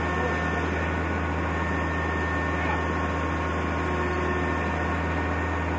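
A large engine or machine running steadily at one speed: a deep, constant hum with a few steady tones and an even hiss over it.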